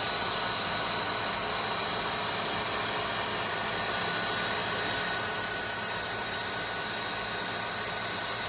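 Colchester Student lathe with its 3 hp motor running under load at 850 rpm. A carbide TCMT insert takes a 2.5 mm cut off the diameter of hardened 17-4 PH stainless steel bar at 0.2 mm per rev: a steady machine noise with a high whine.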